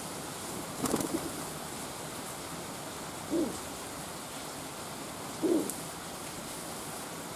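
A feral pigeon cooing three times, about two seconds apart, over steady rain.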